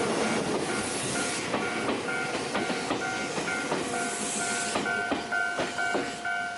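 Ohmi Railway train passing over a Japanese level crossing, wheels clacking over rail joints with two bursts of hiss. Under it the crossing warning bell rings its repeating two-note 'kan-kan' at about two strikes a second.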